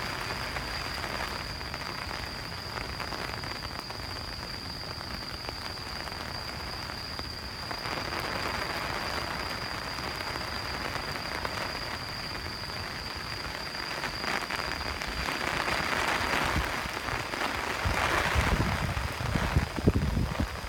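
Typhoon rain falling hard and steadily, swelling louder in waves. From a little before the end, wind gusts buffet the microphone with a low rumble. A thin steady high whine sits underneath throughout.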